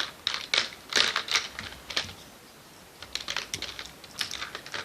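Crisp crackling and clicking from handling toy paper money and its plastic wrapping: clusters of quick sharp ticks, most dense in the first second and a half and again from about three seconds on, with a lull in between.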